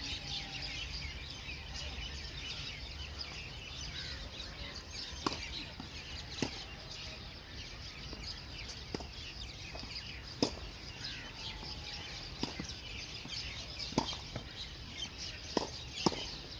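Tennis ball being hit back and forth in a rally: sharp pops of racket strikes and court bounces every second or two, starting about five seconds in. Birds chirp steadily behind them.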